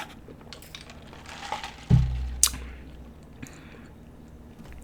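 Quiet mouth and handling noises close to the microphone: scattered soft clicks, a sudden low thump about two seconds in, and a sharp click half a second later.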